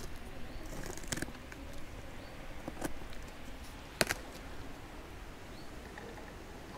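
Cardboard shipping box being handled and opened, giving a few sharp knocks and scrapes; the loudest comes about four seconds in. A steady low background hiss runs underneath.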